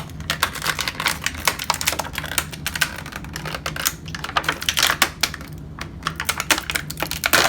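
Hands working a plastic toy dinosaur figure and its packaging: a dense run of irregular clicks, crinkles and rustles.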